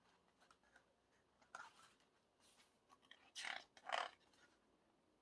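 Faint paper rustling from the pages of a K-pop album photo book being handled and turned: a few brief soft rustles, the two loudest close together past the middle.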